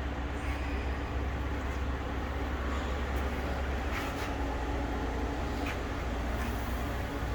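Steady electric machinery hum with a few faint ticks about four and six seconds in.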